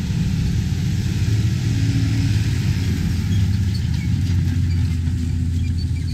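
Versatile 335 tractor's Cummins 8.9-litre diesel engine running steadily under load, pulling a disc chisel plow through the soil.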